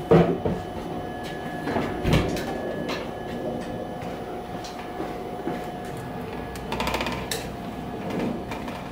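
A BMX bike being handled: a sharp knock as it comes off its wall hook, another clunk about two seconds in, and a quick clicking rattle about seven seconds in as it is moved along, over a faint steady hum.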